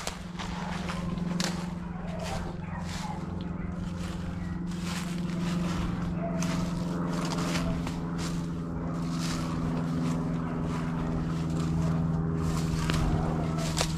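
Brush and leaves crackling underfoot as someone pushes on foot through thick cover, over a steady low hum.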